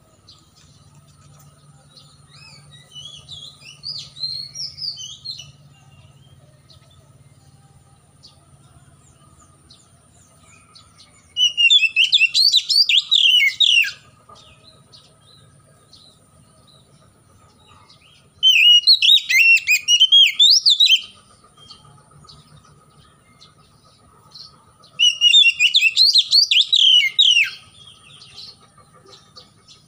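Oriental magpie-robin (kacer) singing: three loud song phrases of rapid, sweeping whistles, each about two and a half seconds long, about eleven, eighteen and twenty-five seconds in. A softer twittering phrase comes about three seconds in.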